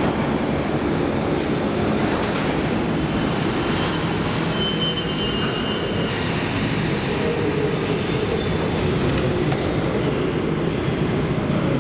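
Metro train pulling into an underground station and braking to a stop at the platform. A steady rumble carries through, with a thin brake squeal for a couple of seconds midway.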